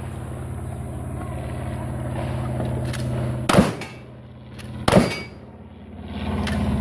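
Two loud gunshots about a second and a half apart, over an engine running steadily.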